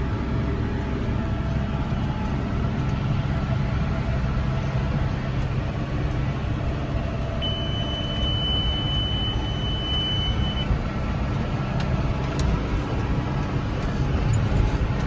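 Tractor engine running steadily under load, heard from inside the cab. Midway through, a steady high electronic beep sounds for about three seconds and then stops.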